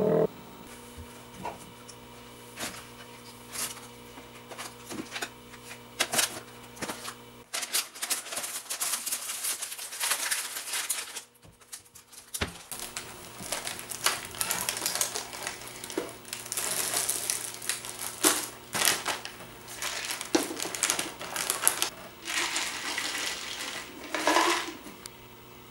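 Snack packaging and containers being handled: a string of sharp clicks, knocks and clatter with crinkling plastic wrappers, broken by a brief silent cut partway through. Near the end there is a longer, dense rattling stretch as a jar is tipped up to the mouth.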